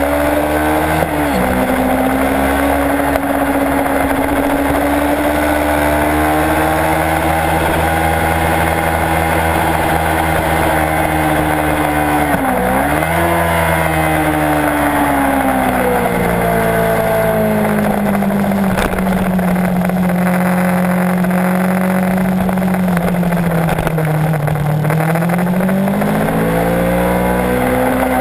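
Kawasaki Ninja 650 parallel-twin engine under way on a track lap, its pitch climbing and falling with the throttle and gears over a steady rush of wind. The pitch drops sharply and recovers about a second in and again about halfway, then holds lower for several seconds before climbing again near the end.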